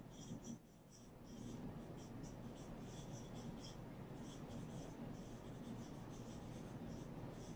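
Marker pen scratching on a whiteboard in quick short strokes as a word heading is handwritten, faint, with a brief pause about half a second in.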